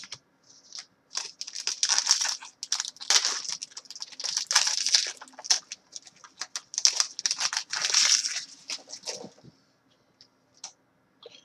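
Hockey card pack wrapper being torn open and crinkled by hand: a run of ripping, rustling scrapes lasting about eight seconds, then quiet.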